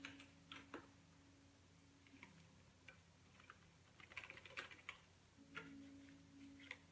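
Faint scattered clicks and light taps from a yogurt tub being handled and opened, over a low steady hum.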